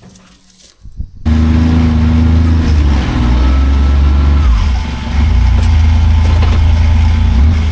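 Large diesel engine of farm machinery running steadily and loudly, cutting in abruptly about a second in, with a brief dip in level near the middle.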